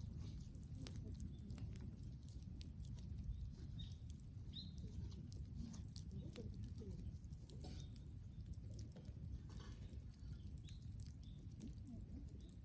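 Brush-wood bonfire crackling, with many small irregular pops and snaps over a low rumble.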